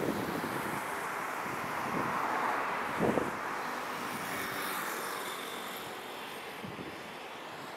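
A train passing: a rushing rumble that swells about two seconds in and fades toward the end, with a couple of sharp knocks around three seconds in, and wind on the microphone.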